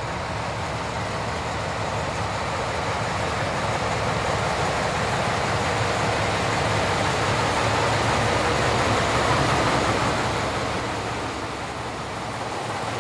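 Soviet-built TU7 narrow-gauge diesel locomotive running light at low speed with its diesel engine running steadily. It grows louder as it draws up alongside and eases off a little near the end.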